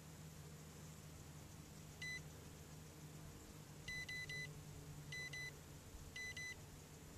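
High electronic beeps: a single beep about two seconds in, then short clusters of two or three rapid beeps, over a faint low hum.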